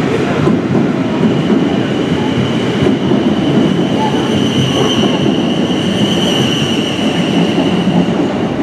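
South West Trains Class 444 Desiro electric multiple unit pulling out past the platform, its wheels and running gear giving a steady rumble. A thin high squeal comes in about a second in and holds until near the end.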